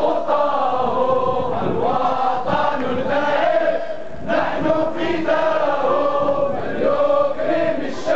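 A crowd of protesters chanting Arabic slogans in unison, in rhythmic phrases about four seconds long with brief breaks between them.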